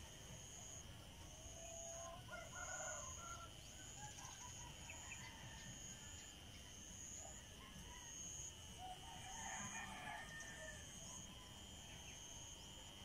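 Two faint, distant animal calls, each about a second long, one early and one near the end, over a steady high-pitched sound that pulses about once a second.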